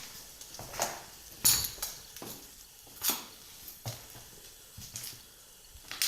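Slow footsteps crunching and clinking over debris on a floor, with about one sharp step or crunch each second.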